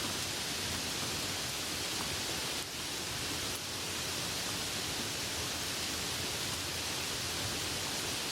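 Steady, heavy rain falling, an even, dense hiss with no separate drops or thunder standing out.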